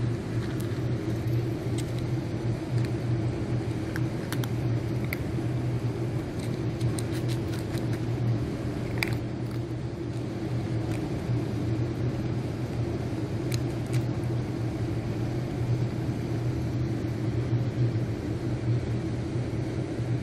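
Cats crunching dry kibble from a metal tray: scattered faint crunches and clicks over a loud, steady low hum that runs throughout.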